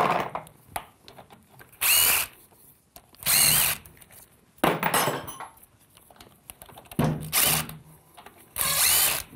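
Cordless impact driver with an extension and socket running in six short bursts about a second and a half apart, backing out the bolts of the adapter housing on a 68RFE automatic transmission.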